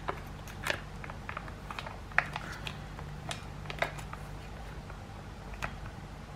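Plastic mayonnaise sachet crinkling as it is squeezed by hand, a scatter of irregular sharp crackles over a low steady hum.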